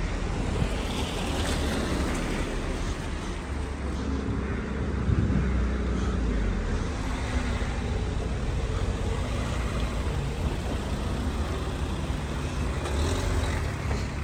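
Street traffic: a motor vehicle's engine running close by over steady road noise, loudest about five seconds in.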